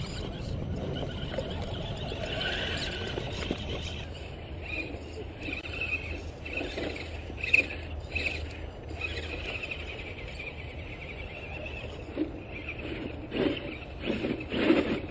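A radio-controlled crawler truck's electric motor and gears whining in short spurts as it drives over ice and snow, with a sharp knock about seven and a half seconds in.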